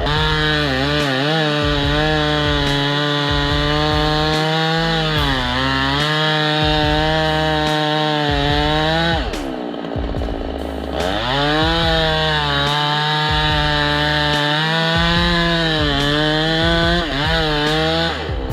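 Chainsaw running at high revs while cutting, its pitch dipping again and again as the chain bites into the wood. About halfway through it drops briefly toward idle, then revs back up.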